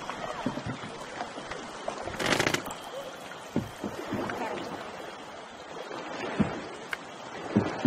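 Canoe moving on the river: water washing and lapping along the hull, with scattered paddle knocks and a louder burst of splashing about two seconds in.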